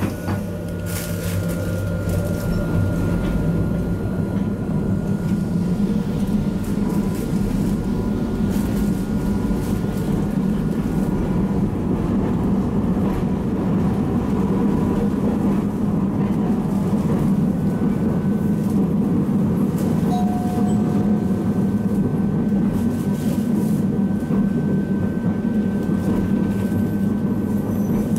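Hakodate city tram car 719 running along the line, a steady low hum of motors and wheels on rail with a faint, nearly steady high whine above it.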